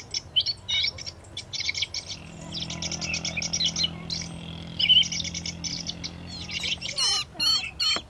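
Thrush calling in short, repeated chirps and harsh squawks, a bird caught in a mist net, with wavering calls near the end. A low steady hum runs underneath from about two seconds in until just before the end.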